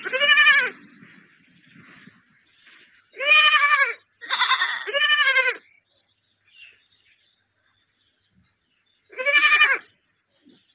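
A lamb bleating five times: one call at the start, three in quick succession a few seconds in, and one more near the end, each call rising and then falling in pitch.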